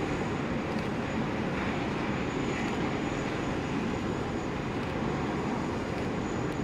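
Boeing 777F freighter's GE90 jet engines running at low taxi power: a steady, even rumble with a faint thin high whine.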